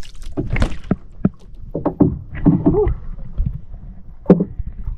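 Irregular knocks and thumps on a small outrigger boat, with a sharp thud near the end.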